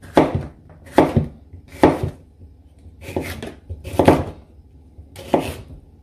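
Kitchen knife slicing a pepper on a chopping board: about six separate strokes, roughly one a second, each ending in a knock of the blade on the board.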